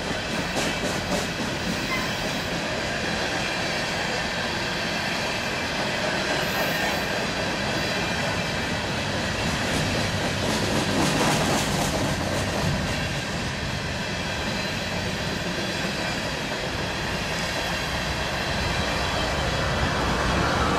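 Empty coal train cars rolling past, steel wheels clattering rhythmically over the rail joints with a steady rumble.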